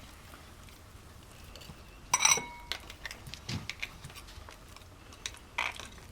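Scattered light taps and clicks, with one louder ringing clink, like crockery or metal being struck, about two seconds in.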